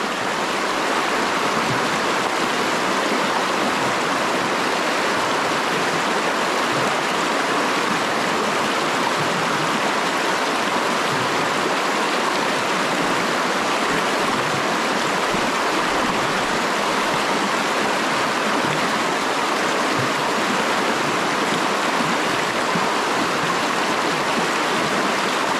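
Steady rushing of a fast-flowing creek, even and unbroken.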